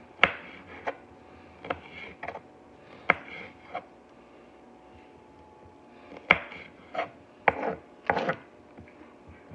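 Chef's knife slicing small sweet bell peppers on a cutting board: sharp knocks of the blade hitting the board, about seven in an irregular run, then a pause of about two seconds, then about five more.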